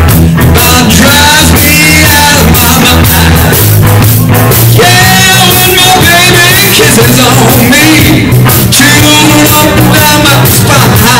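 Live rock band playing loud: electric guitar, electric bass and drum kit, with a man singing.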